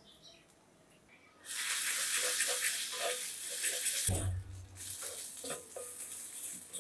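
Green vegetable paste sizzling in a heavy black pan while a metal spatula stirs and scrapes it, starting suddenly after a near-quiet first second and a half, with a dull knock of the spatula against the pan about four seconds in.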